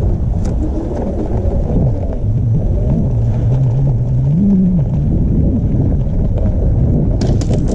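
Low, steady rumble of wind and ride noise on the microphone while a Super 73 electric bike is being ridden. A low hum wavers up and down in the middle, and a few sharp clicks come near the end.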